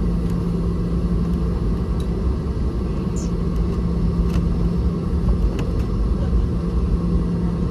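Steady low rumble inside the cabin of a Boeing 717-200 with its rear-mounted Rolls-Royce BR715 turbofans running, with a low steady hum that comes and goes and a few faint clicks.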